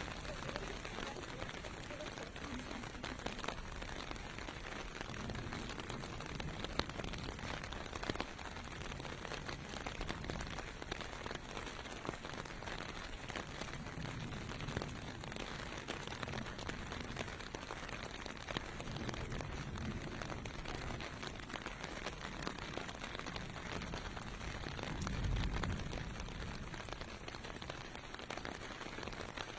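Steady rain falling on pavement, an even hiss of drops, with low rumbles of distant cars and trucks passing; one louder passing rumble comes near the end.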